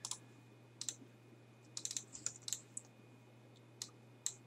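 Typing on a computer keyboard: scattered single keystrokes with a quick run of presses about two seconds in.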